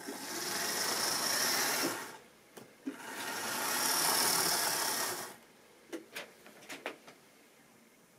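Triang model diesel locomotive running on the track, its electric motor whirring with the wheels rattling over the rails, in two runs of about two seconds each with a short pause between. A few sharp clicks follow near the end.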